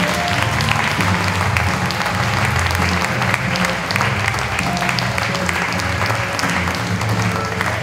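Audience applauding, with music playing underneath: a bass line changing note about twice a second.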